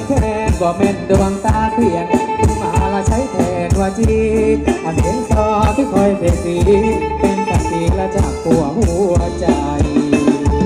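A live band playing Thai ramwong dance music, with a steady drum-and-shaker beat under a melody line.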